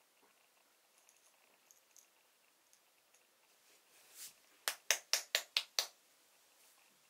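Whole coffee beans rattling inside a glass jar as it is shaken: a soft swish, then six quick rattles about five a second, a little before the jar goes still.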